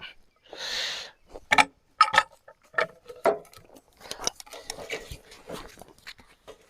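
Scattered metallic clicks, clanks and knocks from turning a log over on the sawmill bed, with a short rushing noise about half a second in.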